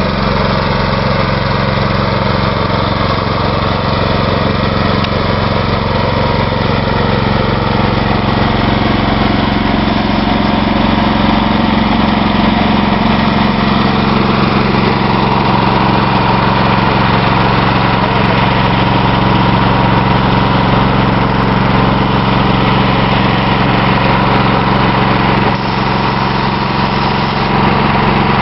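Small engine running steadily at an even speed, over a constant hiss.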